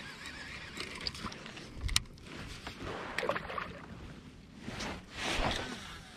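Handling noises in a plastic fishing kayak: a sharp knock about two seconds in, then rustling and shuffling as the angler moves about with a baitcasting rod and reel.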